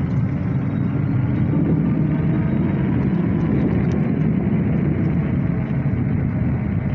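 Axiniu X2 dual-motor electric bike being ridden over wet pavement: a steady, loud rumble of wind on the microphone and tyres on the wet asphalt, with no breaks.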